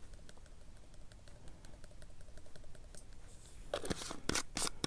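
Faint small ticks as garlic powder is shaken from a plastic spice shaker into a plastic tub. About four seconds in come several sharp clicks and knocks of handled plastic, the loudest sounds here.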